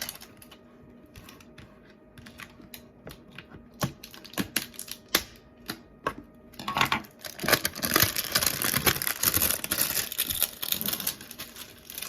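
Hands working at the hard-to-open lid of a plastic slime container: scattered sharp plastic clicks at first, then from about seven seconds in a dense run of crinkling and clicking.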